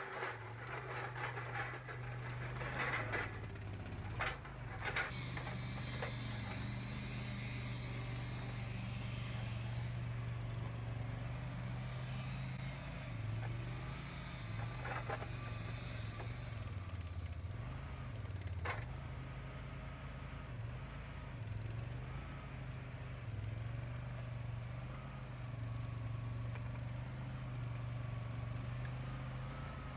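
Boxer 427 skid steer's engine running steadily, dropping and recovering in speed several times around the middle as the machine works. Rattling and knocking in the first few seconds, and two sharp clanks later on.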